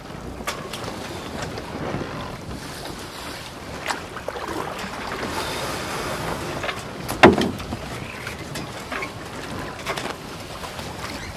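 Wind on the microphone over a steady outdoor wash of noise, with a few sharp knocks, the loudest about seven seconds in.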